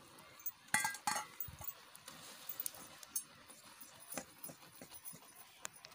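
Metal clinking of a steel bowl and a long steel ladle against an iron kadai: two sharp clanks about a second in, then lighter, scattered clinks as the contents are stirred.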